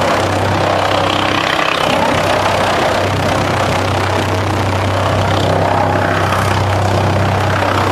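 DFR4-550s drum chipper running steadily while wood slats are fed into its spiked feed roller. It makes a constant low hum under a loud, even rushing noise.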